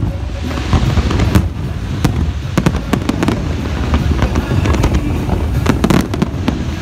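Fireworks display going off: a rapid, irregular run of sharp bangs and crackles over a continuous low rumble of booms.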